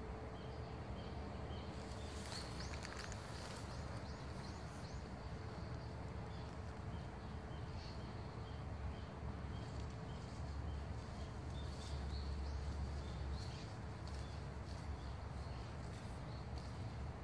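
Outdoor ambience: a steady low rumble with faint high chirps repeating about twice a second, and a few brief rustling crackles.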